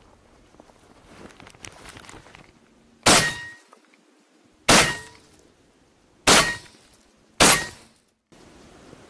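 Shotgun fired four times in quick succession, the shots about a second and a half apart, each one sudden and loud. The hunter is shooting at a hare that got up at long range.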